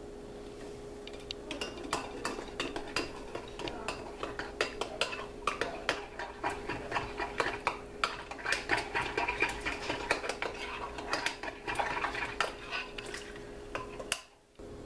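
A utensil stirring a flour slurry of broth and water in a glass measuring cup, clinking and scraping against the glass in rapid, uneven taps. The stirring stops briefly just before the end.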